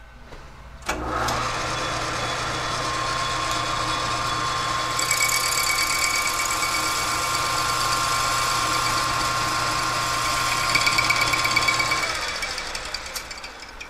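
Metal lathe started about a second in, its motor and gearing running with a steady hum and whine as the chuck spins a welded clutch housing. From about five seconds in, a higher hiss of the tool taking a light facing cut of a couple of thousandths is added. The machine is switched off near the end and winds down.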